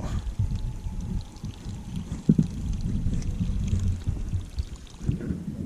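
Water lapping and sloshing against a small boat, over a low, uneven rumble.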